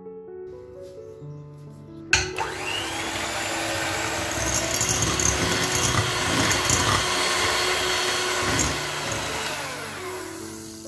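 Cobra electric hand mixer beating egg whites with salt to stiff peaks in a ceramic bowl: it clicks on about two seconds in and runs steadily with an even whirr, dying away near the end. Soft piano music plays before it starts and again as it fades.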